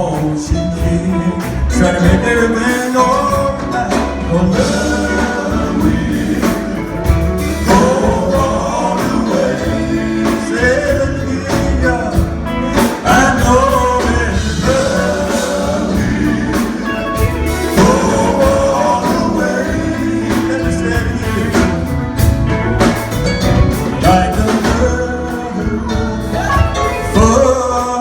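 Gospel group singing with instrumental backing and a steady beat.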